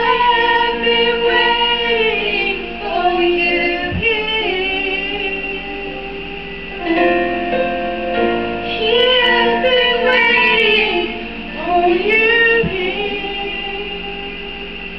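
A woman singing a slow worship song into a microphone, in sung phrases with long held notes, over instrumental music.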